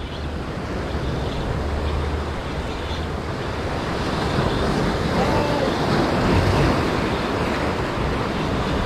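Ocean surf breaking and washing over shoreline rocks, a steady rush of foaming water, with wind rumbling on the microphone.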